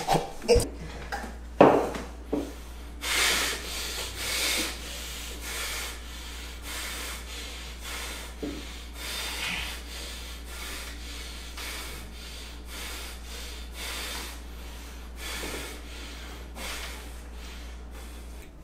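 Heavy breathing in and out through the nose, in repeated swells about once a second, over a low steady hum, with a few sharp knocks near the start.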